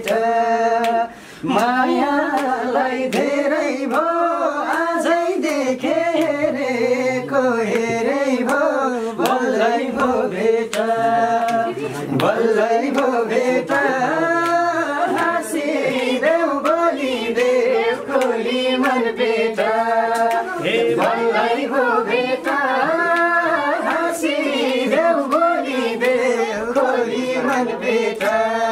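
Voices singing a Nepali folk song with held, wavering notes, and hand claps keeping time.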